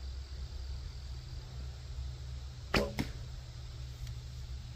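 A shot from a Sanlida Royal X8 hunting longbow about three-quarters of the way through: the Flemish-twist string snaps forward with a brief low thrum, and about a quarter second later comes a second, lighter sharp hit, the arrow striking the target. A steady low hum runs underneath.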